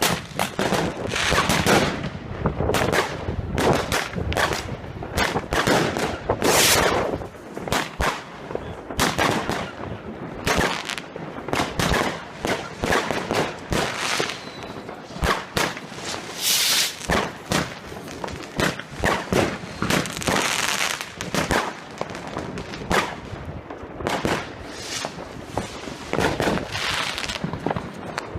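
Fireworks going off without a break: a dense, irregular run of sharp bangs and crackling reports, several a second, with a few longer hissing bursts among them.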